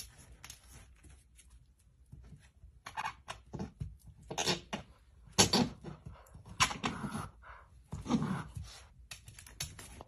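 Golden retriever puppy pawing and mouthing at its reflection in a mirror: claws and teeth tapping and knocking on the glass in short irregular bursts, with a few brief puppy vocal sounds among them.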